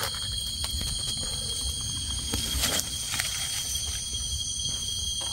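Steady high-pitched drone of insects, with scattered light clicks and rustles.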